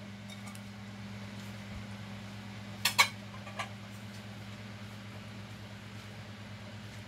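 Two quick clinks of a ceramic bowl against a stainless steel pot about three seconds in, with a fainter tap just after, over a steady low hum.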